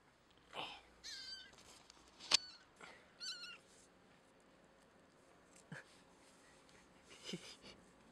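A small kitten mewing a few times, short high mews, while held by the scruff of its neck. A single sharp click a little after two seconds.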